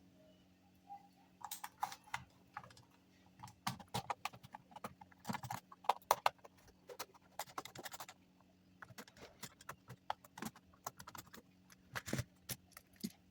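Plastic extension socket being taken apart by hand: irregular clicks, taps and small knocks of the screwdriver and plastic casing, some in quick clusters, over a faint steady hum.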